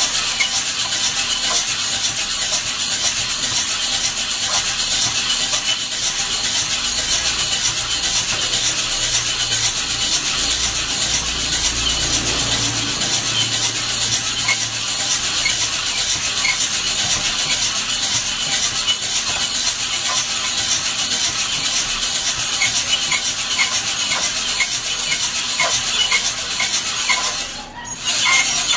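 Coffee beans tumbling and rattling inside a hand-cranked drum roaster as it is turned steadily. The sound dips briefly just before the end.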